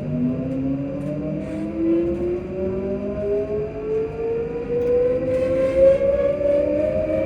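The traction motors of a ScotRail Class 334 electric multiple unit hum on board, their pitch rising steadily as the train accelerates. Wheel and rail rumble runs underneath.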